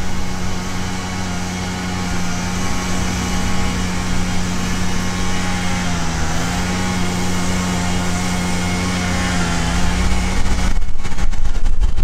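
Honeybees buzzing over an opened hive: a steady hum that dips briefly in pitch around the middle and cuts off abruptly near the end.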